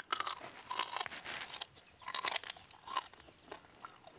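A rhino beetle being bitten and chewed raw by a person, its hard shell giving crackly crunches in several bursts with short pauses, the last about three seconds in. Very crunchy.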